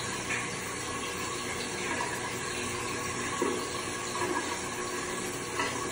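Bathroom tap running steadily into a sink.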